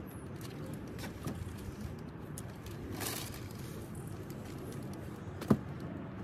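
Plastic rubbish bag rustling and small things being handled as litter is cleared from a car's back seat, with a few light clicks and one sharp knock about five and a half seconds in.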